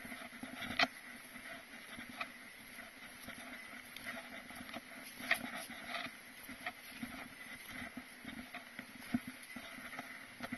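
Footsteps of a hiker walking down a snowy mountain trail: irregular steps and knocks, with a sharper strike about a second in and another about five seconds in.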